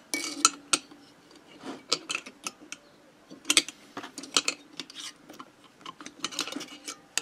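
Irregular metallic clicks and clinks of a ratchet torque wrench and a screwdriver working against the aluminium of a moped engine, with small clusters of ticks between quieter gaps.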